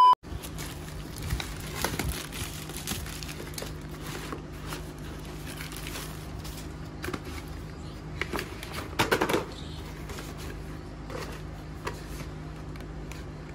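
A short test-tone beep at the very start, then a plastic courier mailer bag being torn open and crinkled by hand while packaged bat grips are pulled out, with irregular rustling and crackling and a louder burst of crinkling about nine seconds in.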